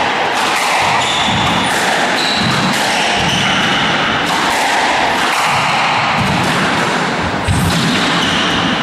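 Squash rally: the ball knocked sharply off rackets and court walls again and again, with short squeaks of court shoes on the wooden floor.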